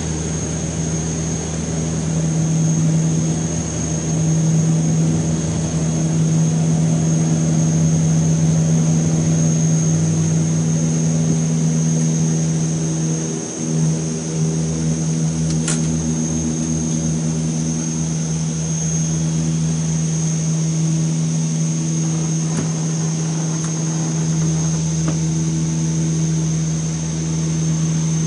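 De Havilland Canada Dash 8 twin turboprop engines at takeoff power, heard from the cockpit through the takeoff roll and climb-out: a steady propeller drone with a high turbine whine. The drone dips briefly about 13 s in, and there is a single click about 16 s in.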